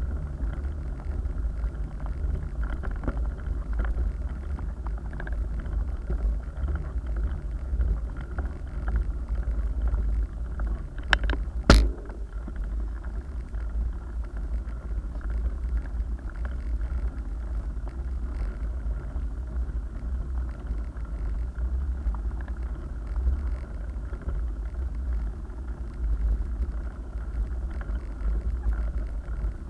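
Mountain bike rolling on rough asphalt heard through a bike-mounted camera: a steady low rumble of the knobby tyres and frame vibration, with one sharp knock a little under halfway through.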